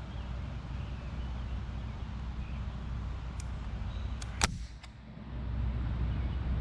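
A single sharp shot from a CO2 air gun about four and a half seconds in, with a few faint clicks just before and after it, over a steady low background rumble.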